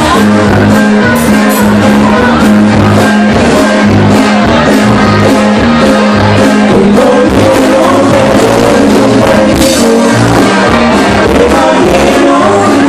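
Live band playing loud amplified music, with electric guitars, bass and drums and a singing voice, heard through the room's PA.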